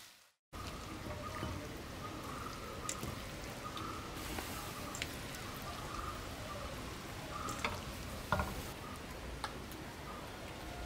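Raw beef chunks being dropped by hand from a colander into a pressure cooker: soft wet drops and a few short clicks over a faint steady background. At the very start the last of a frying sizzle fades out.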